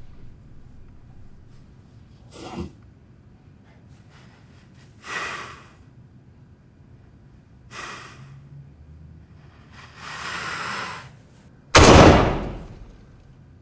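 A man's heavy breaths and gasps, a few seconds apart, then a single loud revolver shot about twelve seconds in, ringing out and dying away over a second or so.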